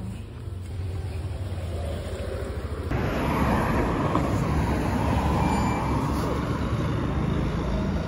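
Street traffic noise: a steady low rumble of passing road vehicles, stepping up louder about three seconds in, with a car passing close soon after.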